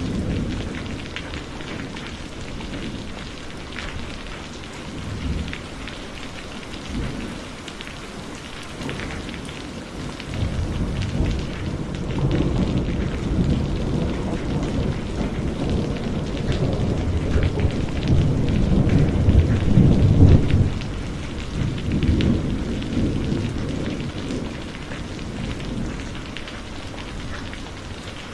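Heavy rain falling steadily, with rolling thunder. A rumble fades in the opening seconds, and a longer roll builds from about ten seconds in, peaks around twenty seconds, then dies away.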